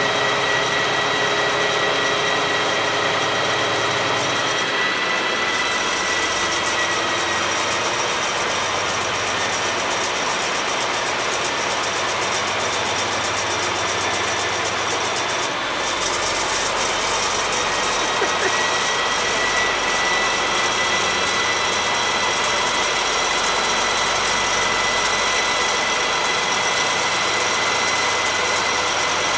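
DB Class 218 diesel-hydraulic locomotives idling at the head of a standing passenger train: a steady engine sound with a steady high-pitched whine over it.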